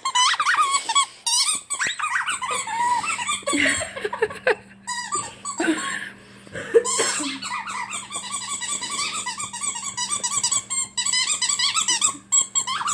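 A dog chewing a squeaky toy, setting off quick runs of high, wavering squeaks over and over.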